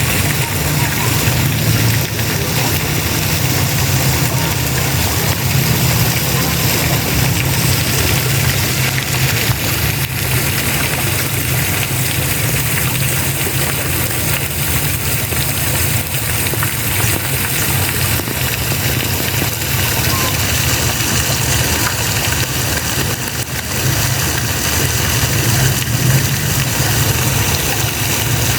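Water spraying and splashing down in a steady, even rush, with a steady low hum underneath.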